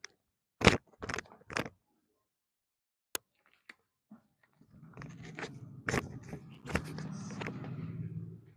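Joints cracking under a chiropractic spinal adjustment: three sharp cracks in quick succession about a second in and a single click near the middle. This is followed by a few seconds of rustling and scraping over a low hum.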